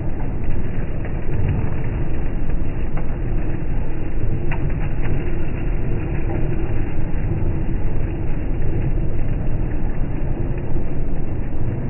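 Small petrol engine of a sugarcane juice machine running steadily, with a couple of light clicks near the middle.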